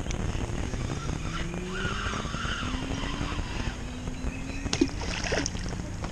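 Abu Garcia spinning reel being cranked to bring in a 15 g spoon: a gear whir whose pitch rises as the winding speeds up, with a few sharp clicks near the end.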